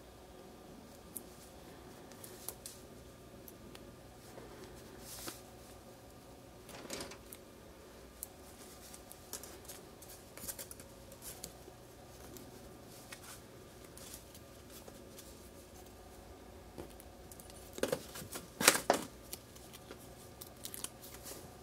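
Small clicks, scrapes and rustles of fingers handling a tiny 6mm brushed drone motor wrapped in foam tape and its thin lead wires, over a faint steady hum. A louder cluster of clicks and scrapes comes near the end.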